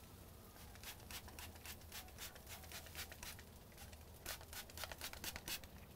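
Hand spray bottle misting water onto smoking beef ribs: a run of quick, short squirts, several a second, pausing briefly a little past halfway.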